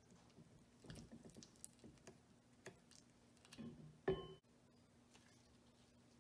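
Greasy Model T differential parts handled on a wooden bench: scattered light clicks and knocks, then one sharp metallic clank with a brief ring about four seconds in.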